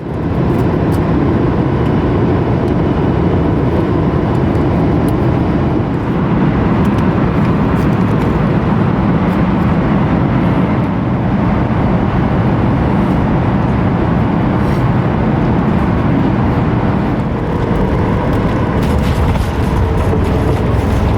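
Steady jet engine and airflow noise heard inside an airliner's cabin on arrival.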